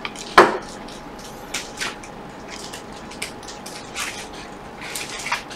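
Small clicks and rustles of a finger pressing the iPhone XR's display flex cable connectors onto their board sockets while the screen is held up, with one louder click just under half a second in.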